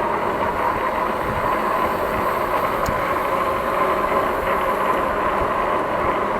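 Electric bike running at speed, around 20 mph, on a rough road: steady tyre and wind noise with a faint steady whine, and a light tick about three seconds in.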